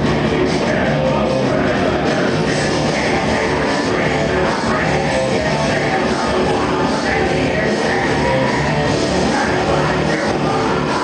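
Live industrial metal band playing a song, a dense, steady, unbroken wall of band sound.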